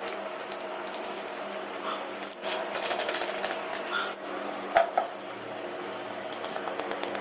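Pizza dough of maida flour and yeast being mixed and kneaded, with light clattering and two sharp knocks just before five seconds in, over a steady background hum.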